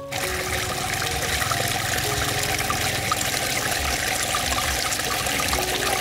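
Water from a small garden fountain pouring over a stone lip and splashing steadily into a pond; it starts abruptly.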